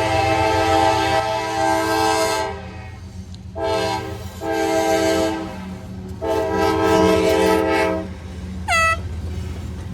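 Union Pacific freight locomotive sounding its air horn, a multi-note chord in a series of blasts: one ending about two and a half seconds in, two short ones, then a longer one. A steady low rumble of the passing train runs underneath, and a brief rising tone comes near the end.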